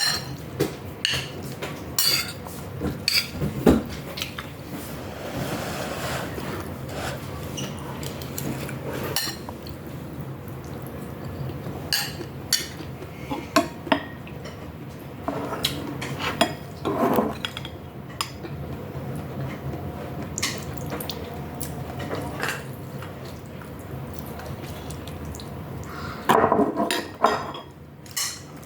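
Eating miswa noodle soup with sardines: a spoon clinking against a bowl in scattered sharp taps, with wet, liquid eating noises now and then, over a steady low hum.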